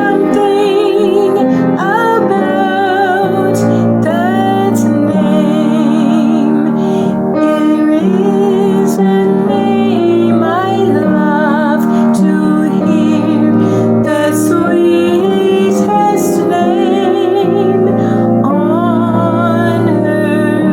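A woman singing a slow hymn with wide vibrato over a steady piano accompaniment.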